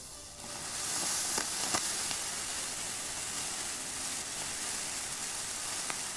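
Small Comet Mini-Power-Vesuv ground fountains (Class 1 youth fireworks) spraying sparks: a steady fizzing hiss that swells about half a second in, with a few sharp crackles.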